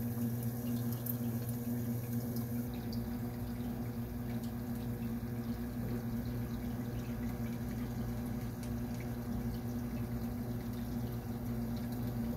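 Aquarium running: a steady low electric hum with water bubbling and trickling, and scattered faint ticks.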